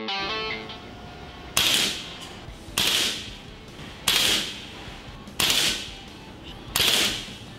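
Diana Bandit .22 PCP air pistol firing five shots about a second and a quarter apart, each a sharp crack with a short ringing tail.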